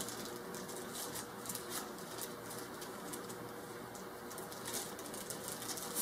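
Light rustling and crinkling with small plastic clicks as the coffee maker's little water-filter holder and filter are unwrapped and handled.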